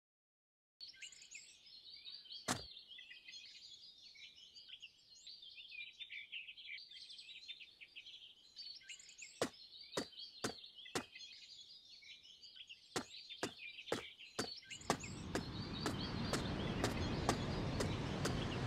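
After a second of silence, many small birds chirping in a steady ambient chorus, with a single sharp click and then runs of footstep clicks at about two a second. About fifteen seconds in, a steady rush of sea surf rises in and becomes the loudest sound.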